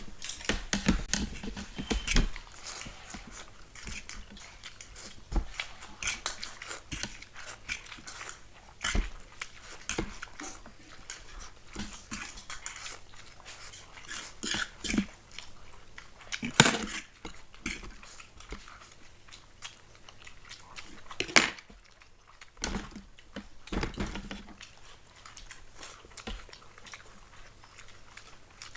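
People eating masala noodles fast in an eating race: chewing, slurping and mouth noises, with a few louder sharp sounds along the way.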